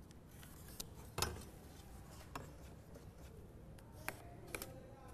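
Faint, scattered clicks and knocks, about six in all, from a steel square and a pencil being set against and drawn along wooden boards while marking them out. The loudest knock comes about a second in.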